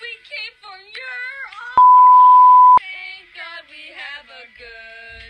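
A song with a female voice singing a wavering, sliding melody, cut about two seconds in by a loud, steady one-second bleep, like a censor tone over a word.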